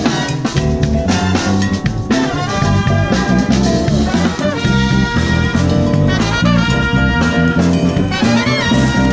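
Jazz big band playing live: the trumpets and trombones of the brass section over a drum kit and rhythm section.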